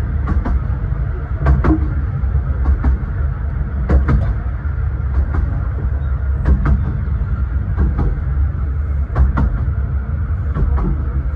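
Rear carriage of a 15-inch gauge miniature railway train running along the line, heard from inside its compartment: a steady low rumble of wheels on rail, with sharp clicks every second or two, often in close pairs, as the wheels cross rail joints.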